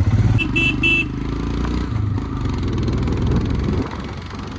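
Royal Enfield Himalayan single-cylinder motorcycle engine running under way, with three quick high beeps near the start. The engine note drops off near the end.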